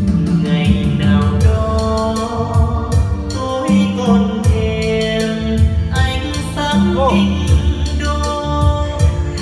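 Music with singing over a steady, heavy bass beat.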